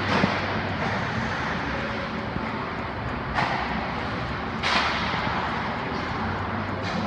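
Steady hiss of an indoor ice rink, with a few sudden hissing scrapes that fade over about a second each, as of skate blades cutting the ice.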